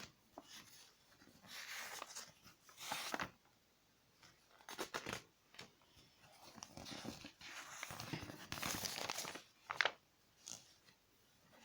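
Rustling and crinkling of paper and plastic packaging being handled in irregular spells of a second or so, with a few sharp clicks, the sharpest near the end.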